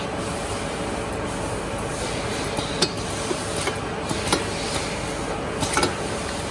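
Bouillon-cube paper-wrapping and boxing machine line running with a steady mechanical noise and a faint hum. Several sharp metallic clicks and clinks come in the second half as the pneumatic pusher shoves rows of wrapped cubes into the tray conveyor's slots.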